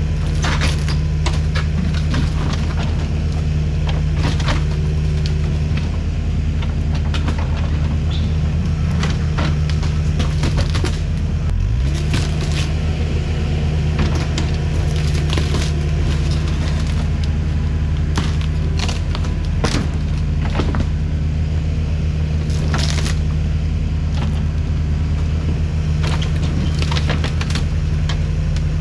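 Kubota diesel engine running steadily under load, with repeated sharp cracks and snaps of wood as a building is torn apart. The engine pitch dips briefly about twelve seconds in.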